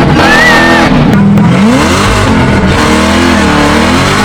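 Supercharged 427 LSX V8 of a Camaro ZL1 running hard, its revs rising and falling repeatedly.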